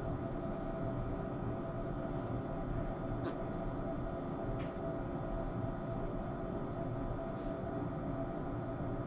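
Steady machine hum made of several held tones at once, with two faint clicks about three and four and a half seconds in.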